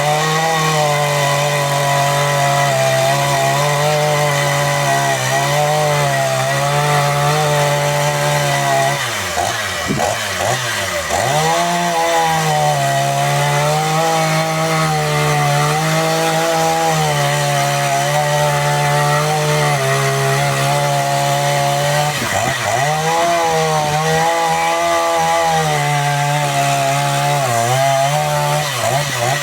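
Two-stroke chainsaw running at high revs while cutting through fir logs, its pitch sagging and wavering under load. Twice, about ten seconds in and again past twenty seconds, the revs drop briefly and climb back up as the saw comes off a cut and goes into the next.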